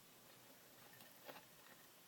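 Near silence: faint room tone, with one faint soft tick a little past halfway.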